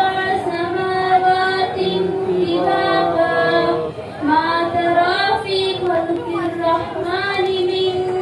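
A young female voice reciting the Quran in melodic chanted Arabic (tilawat), holding long notes that bend and waver, with a short breath pause about four seconds in.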